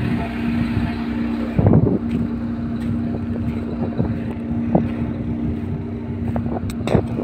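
A road roller's diesel engine running steadily at a constant pitch, with wind buffeting the phone's microphone and a few light knocks.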